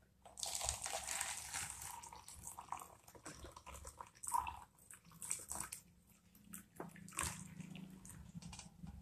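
Just-boiled water with ginger and cinnamon pieces poured from a stainless steel saucepan into a plastic cup, splashing and trickling unevenly.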